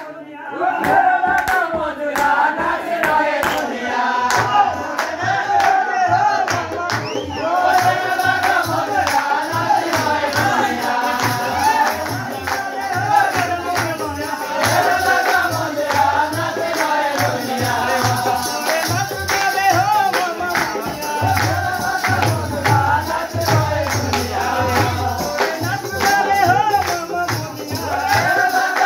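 Sirmouri nati, a Pahari folk song from Himachal, sung over a steady percussion beat.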